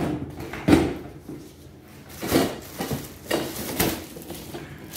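Plastic wrapping rustling and cardboard scraping as the wrapped mower handle parts are pulled out of the shipping box. There are several separate short handling noises, the loudest about a second in.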